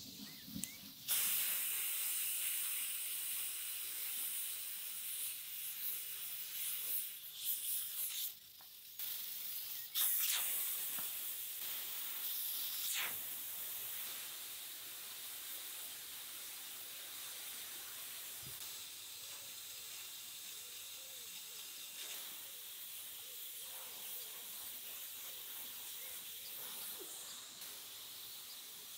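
Steam hissing out of the pressure valve on the lid of an Afghan cauldron, a pressure kazan, as it vents. The hiss starts abruptly about a second in and is loudest and uneven for the first dozen seconds, with a couple of brief breaks. It then settles to a weaker, steady hiss.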